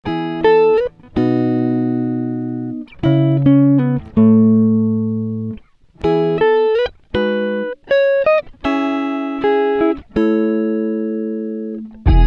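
Solo guitar playing plucked chords and single notes in short phrases, each left to ring and fade, with a few notes slid or hammered up in pitch.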